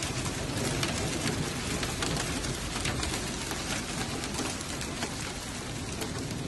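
Heavy hail and rain pelting a flooded street: a steady rush of rain with many sharp ticks and clicks from hailstones striking.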